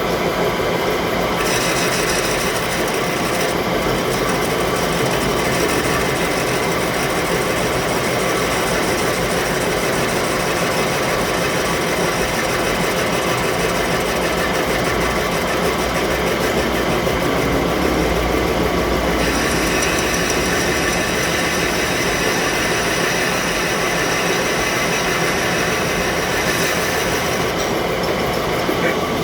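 Metalworking machine tool running steadily with a dense mechanical noise and steady tones. Its higher sound changes about a second and a half in and again about twenty seconds in.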